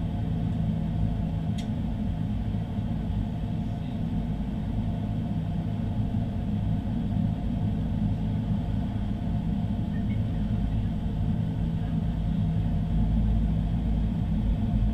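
Steady low rumble and hum in the cabin of an Airbus A350, with its Rolls-Royce Trent XWB engines at idle while the aircraft stands still, growing slightly louder near the end. There is a small click about one and a half seconds in.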